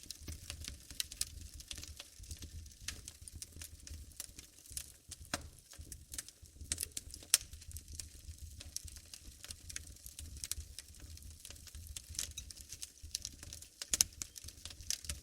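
Wood fire burning in a fireplace, crackling with irregular sharp pops over a low rumble; the loudest pops come about seven seconds in and near the end.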